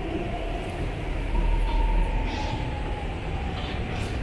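Low rumble of a BART train in an underground station, with a faint whine that slides slowly down in pitch.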